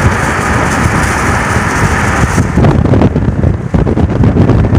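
Wind buffeting the microphone, with road noise, riding in the open bed of a moving pickup truck. About two and a half seconds in the high hiss drops away, leaving heavy low rumbling gusts.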